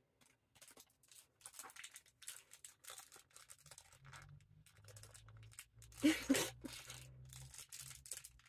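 Faint crinkling, rustling and crackling of a small plastic toy package being pulled and twisted open by hand, in many short strokes with a louder burst about six seconds in.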